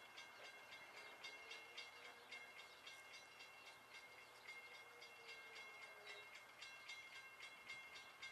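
Near silence: faint outdoor background with a rapid, even, high pulsing sound, about four or five a second, and a weak drawn-out tone in the middle.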